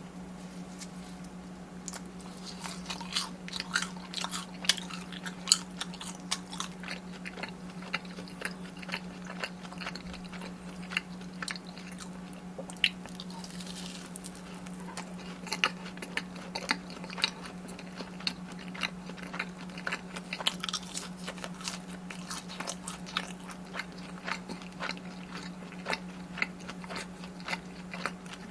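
Close-miked crunchy bites and chewing of deep-fried Korean corn dogs and fried snacks, with irregular crisp crackles throughout. A steady low hum runs underneath.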